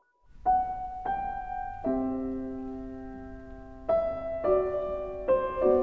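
Slow piano music that starts after a brief silence: single notes and chords struck about once a second and left to ring out.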